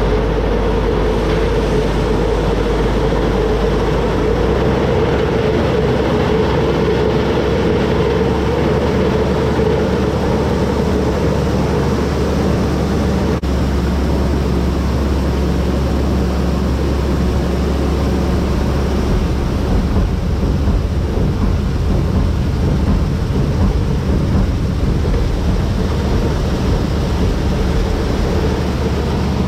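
Heavy farm machinery running steadily and loudly, with a droning hum in the middle range that fades somewhat about halfway through.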